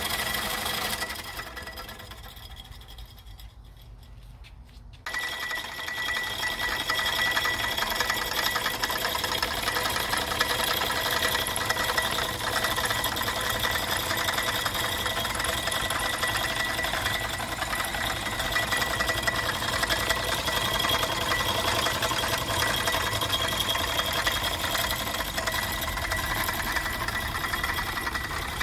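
Motor-driven Hobbies fret saw running, its blade arm reciprocating with a rapid sewing-machine-like clatter and a steady high whine. The sound fades over the first few seconds, then comes back abruptly about five seconds in and runs steadily.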